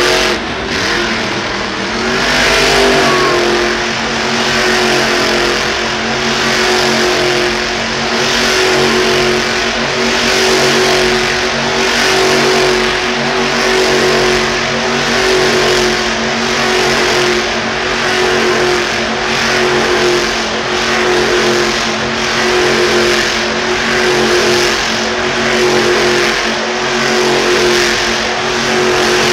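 Monster truck's supercharged V8 engine held at high revs through a donut, its note steady in pitch while the sound swells and fades about every two seconds as the truck circles.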